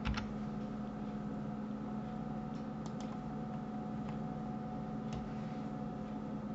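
Steady low electrical hum with a handful of faint, scattered clicks from a computer mouse and keyboard in use: one at the start, a pair about three seconds in, then single ones a second and two seconds later.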